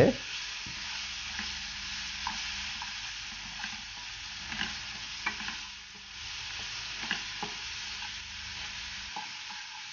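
Chopped tomatoes, onions and spices frying and sizzling in oil in a nonstick kadai, stirred with a wooden spatula: a steady sizzle with scattered light scrapes and taps of the spatula against the pan.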